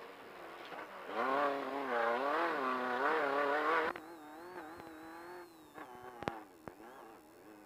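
Off-road race car engine revving unevenly, its pitch rising and falling. About four seconds in it drops abruptly to a quieter, steadier run, with a faint high whine over it and a sharp click near the end.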